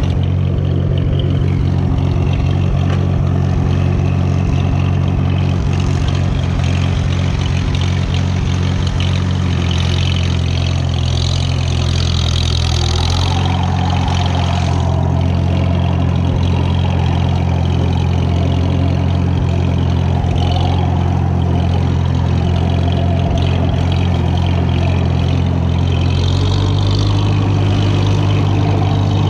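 1942 Farmall H tractor's four-cylinder engine running steadily as the tractor is driven across a pasture, its note shifting slightly about halfway through and again near the end.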